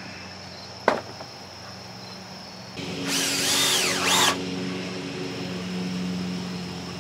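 Cordless drill driving a deck screw into wood: a short whir of about a second and a half, its whine rising and falling twice as the trigger is worked. A sharp click comes about a second before it, and a low steady hum runs behind the drill and on after it.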